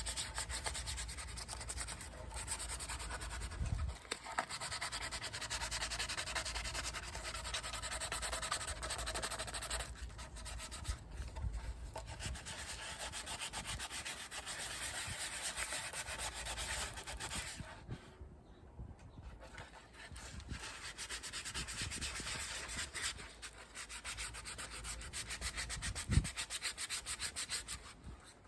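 Sanding on a 3D-printed helmet part: continuous abrasive rubbing, with a short break past the middle.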